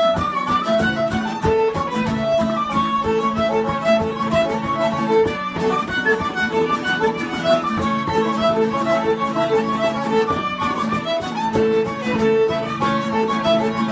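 Irish reel played live on fiddle and tin whistle, with bodhrán and guitar accompaniment: a fast, unbroken run of melody notes over a steady drum beat.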